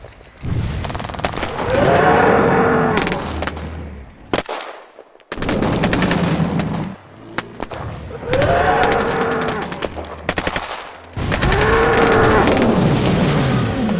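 Sound-effect gunfire in long rapid bursts with short pauses between them, mixed with a low moaning roar that swells and falls in pitch three times, about two, eight and twelve seconds in.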